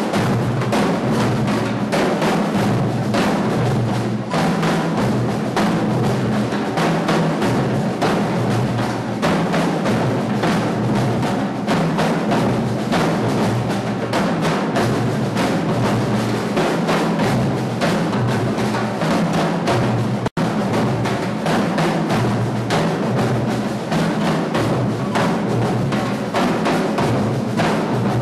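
Drums played fast and continuously, a dense run of strokes over low sustained tones. The sound cuts out for an instant about twenty seconds in.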